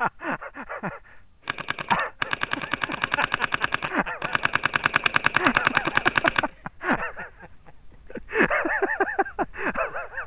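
Customized full-auto airsoft BB gun firing rapidly in three bursts, a short one then two longer ones, each an even rattle of shots.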